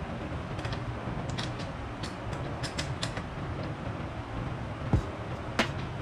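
Hand tools and parts being handled at a bicycle's crankset: scattered light clicks and taps, then a dull knock about five seconds in and a sharper click just after, over a steady low workshop hum.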